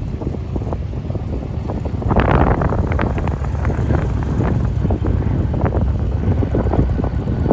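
Wind buffeting the microphone in gusts, louder from about two seconds in, over the low rumble of a UPS Boeing 747's four jet engines as it taxis past; a faint steady whine comes in near the end.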